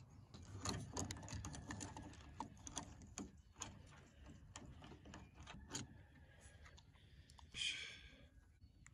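Faint, irregular small clicks and ticks of hand work on vehicle wiring: a plastic wiring connector being handled and wires worked with a wire stripper. A short rasp comes about seven and a half seconds in.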